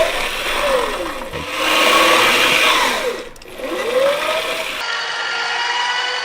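Mechanical whirring from spun sound-effect machines used to make WALL-E's movement sounds, rising and falling in pitch over and over. About five seconds in it changes to a steadier hum.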